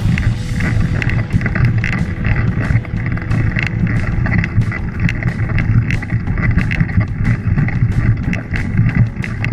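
Mountain bike climbing slowly over rocky dirt singletrack: a steady low rumble from the tyres and frame, broken by frequent short rattling clicks from the bike jolting over stones.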